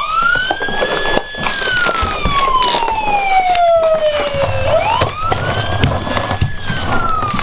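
Tonka toy police truck's electronic siren wailing: a quick rising whoop, a brief hold, then a slow falling tone, twice. Scattered knocks and rattles come from the plastic truck as it is handled and rolled along the floor.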